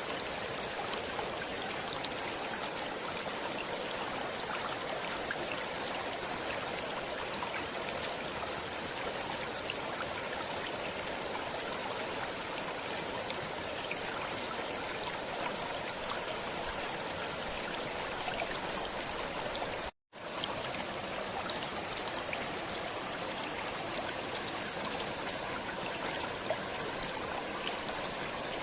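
Stream water flowing and trickling steadily, with a brief cut to silence about two-thirds of the way through before the flow resumes.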